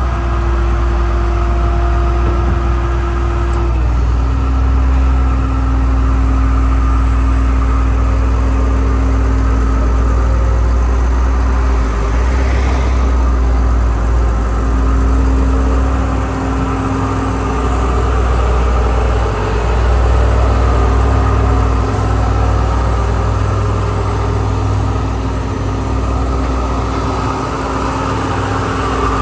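Diesel engine of a Dynapac SD2500CS asphalt paver running steadily, with a low rumble and a steady whine that steps down in pitch about four seconds in.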